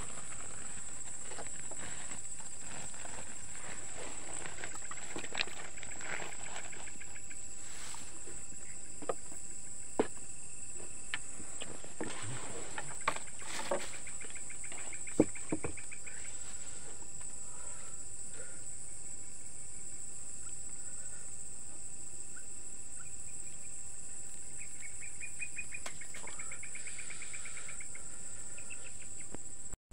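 Night insects chirping: a continuous high-pitched cricket trill, with a second, lower pulsing trill coming in twice. Scattered sharp clicks and knocks in the middle of the stretch, the loudest about halfway through.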